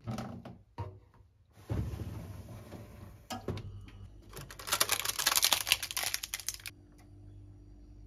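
Plastic freezer drawers of an IRIS OHYAMA drawer-type freezer being handled: clicks and knocks, a drawer sliding out with a knock, then a few seconds of crinkling as a hand rummages through plastic-wrapped ice pops.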